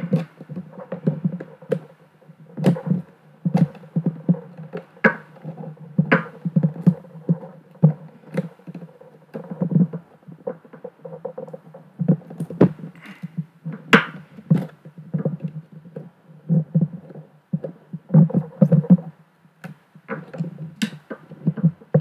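Small screwdrivers prying and poking under a SwissMicros DM42 calculator's keyboard plate: a run of irregular dull knocks with sharp clicks of the tips against plastic and metal.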